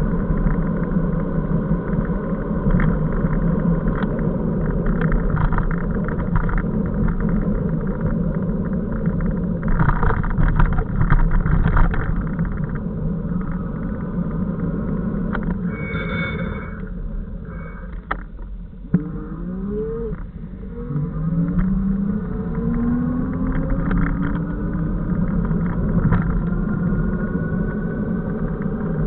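Wind and road rumble from riding an electric bicycle with a 500 W motor through city traffic. About 16 seconds in there is a brief high squeal. The rumble drops as the bike nearly stops, then rising whines follow as it picks up speed again.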